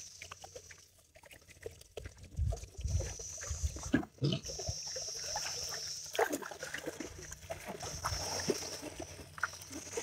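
Unidentified animal calls from the woods, a strange noise that the listeners cannot place, over water sloshing and trickling. A high buzz comes and goes several times.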